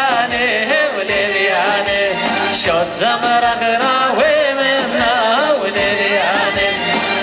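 Live Assyrian sheikhani dance music: a male singer and an ornamented, wavering melody over a steady electronic keyboard beat.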